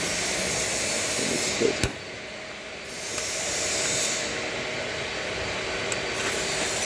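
Steady hiss of air or machine noise that swells twice, with a single sharp click just under two seconds in.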